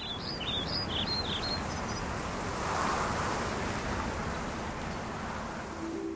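Wind on the microphone, a steady rushing noise, with a small bird singing a quick run of chirping notes during the first two seconds.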